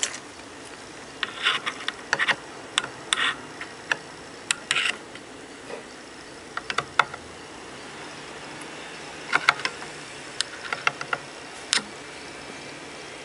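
Hands working inside an open powered speaker's cabinet: scattered clicks, taps and short rustles as cables and metal heatsink parts are handled, in small clusters every second or two over a steady faint hiss.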